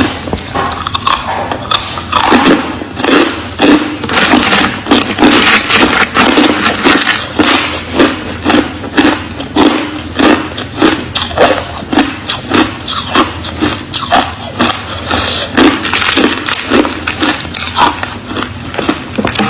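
Crushed ice being chewed close to the microphone: a steady run of loud, crisp crunches, about two a second.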